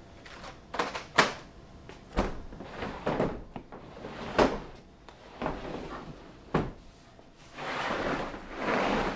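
Things being handled and moved about in a truck bed: several separate hard clunks and knocks, with a longer scraping rustle near the end.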